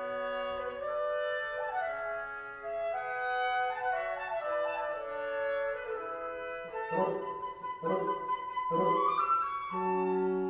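Woodwind quintet of flute, oboe, clarinet, bassoon and horn playing a slow processional movement in sustained, shifting chords. About two-thirds of the way through, the ensemble plays a few short repeated chords under one held high note, then returns to long held chords near the end.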